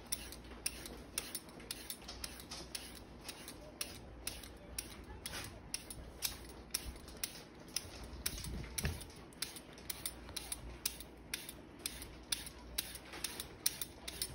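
Vegetable peeler shaving ribbons off a raw carrot: short scraping strokes in a steady rhythm, about two a second.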